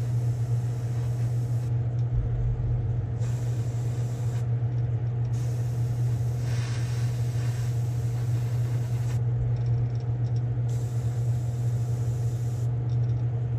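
Airbrush spraying paint in four hissing passes of one to four seconds, the longest in the middle, over a steady low hum.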